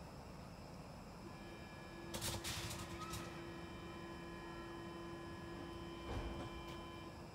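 Stockholm metro train standing at the platform, giving off a steady electrical hum that starts about a second in and cuts off near the end. A few sharp clanks come about two seconds in, and a dull thump about six seconds in.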